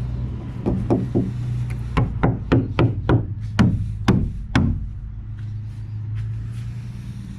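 A series of sharp knocks: three quick ones about a second in, then about eight more, each ringing briefly, from about two seconds in, over a steady low hum.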